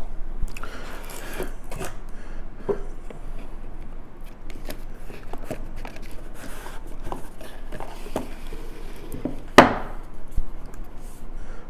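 A watch box and its packaging being handled and opened, with rubbing, rustling and scattered small clicks, and one sharp snap about nine and a half seconds in.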